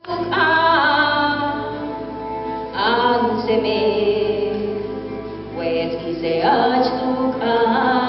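Singing of a Nahuat-Pipil song in phrases a few seconds long, with a steady low hum underneath.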